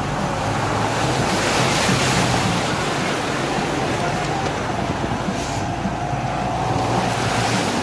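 Truck on the move: a steady rushing of wind on the microphone over the low, even running of the engine.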